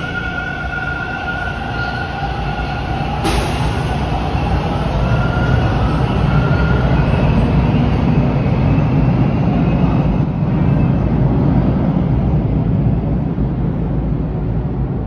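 Bombardier T1 subway train pulling out of the station: a steady electric whine from its propulsion, a sharp click about three seconds in, then a deep rumble of wheels on rail that swells as the train gathers speed and eases off near the end.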